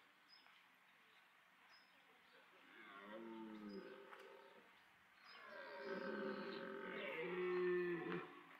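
Red deer stag roaring in the rut: a shorter bellow about three seconds in, then a longer, louder one lasting about three seconds.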